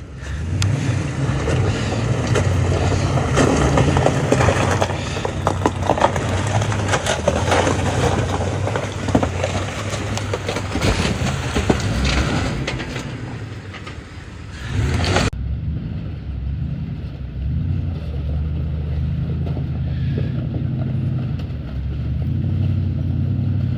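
4x4 truck engine running as it drives a rough trail, with the tyres crackling and crunching over the surface. About fifteen seconds in, the sound changes abruptly to a duller, steadier engine drone without the crackle.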